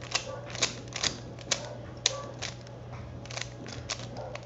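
Rubik's Cube being scrambled by hand: its plastic layers twist with sharp, irregular clicks, about two a second, with a short pause midway.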